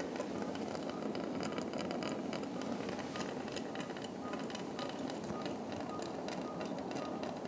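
Operating-room background: a steady hum with many faint small clicks of surgical instruments being handled, and a faint short beep repeating from about midway.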